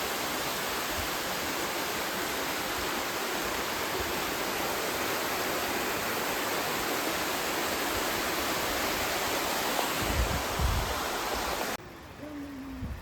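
Steady rushing of flowing water, an even full hiss like a stream or waterfall close by. It cuts off abruptly about 12 seconds in.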